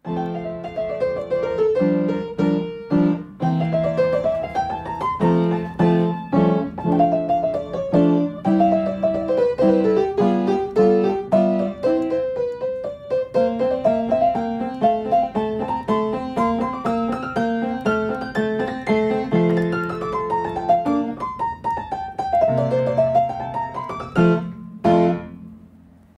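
Piano music: runs of notes rising and falling over held chords, fading out near the end.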